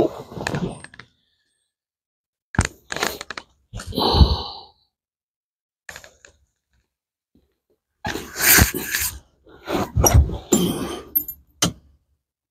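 Short, irregular bursts of rustling and knocking as a person shifts about on a car's front seat and climbs down into the footwell, with bumps against the seat, dash and floor, and gaps of silence between.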